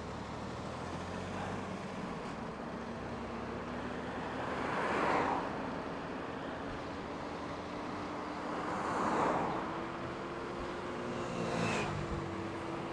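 Cars passing on a road, three swelling and fading in turn about five, nine and twelve seconds in, over steady road and wind noise with a low steady hum.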